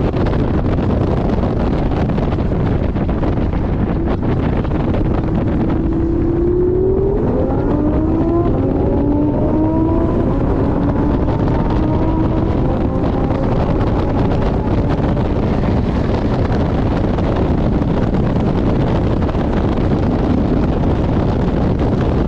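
Porsche 718 Boxster GTS at speed on track, heard onboard: steady wind and road noise buffet the microphone. About six seconds in the engine note rises under acceleration, drops once as it shifts up, then climbs again before fading back under the wind.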